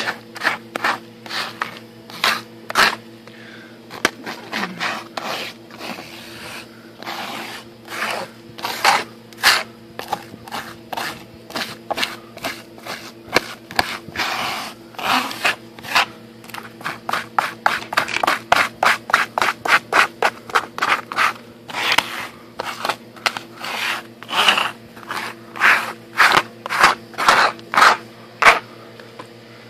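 A white plastic scraper rasps thick algae off the plastic mesh screen of an algae turf scrubber in a long run of short, repeated strokes.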